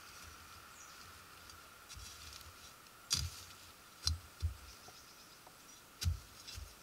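Dry leaf litter crunching and rustling in several short, faint bursts about a second apart, each with a soft thump, after a quiet first two seconds. A faint steady high hum runs underneath.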